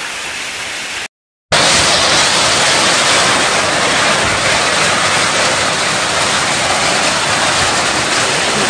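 Heavy hail falling: a dense, steady rush of hailstones. It breaks off for half a second about a second in, then comes back louder and harsher.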